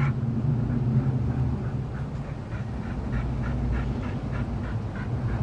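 A dog panting quickly, about three breaths a second, over a steady low hum.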